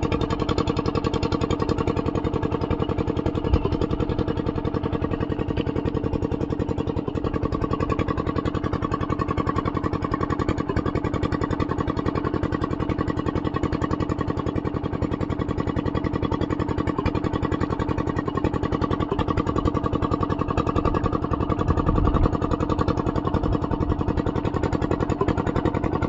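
A small engine running steadily at an unchanging speed, with an even, fast firing beat and no revving.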